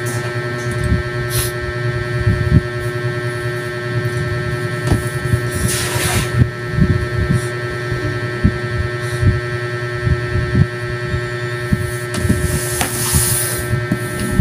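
A steady electrical hum with several fixed tones, over irregular low knocks and bumps, with a short hiss about six seconds in and another near the end.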